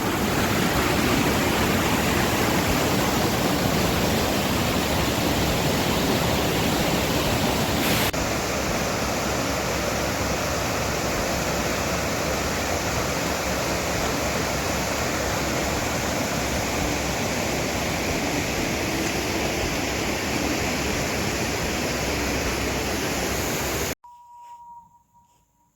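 Rushing river water running steadily, an even wash of water noise that dips slightly about eight seconds in and cuts off abruptly near the end.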